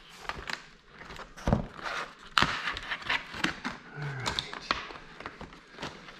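Stiff clear plastic retail packaging being cut and pulled open by hand: irregular crackling and clicking of the plastic, with a couple of sharper knocks against the bench.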